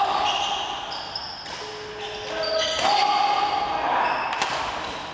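Badminton doubles rally: court shoes squeaking in short high-pitched chirps on the synthetic court floor as the players lunge and turn, with a sharp racket hit on the shuttlecock about four seconds in.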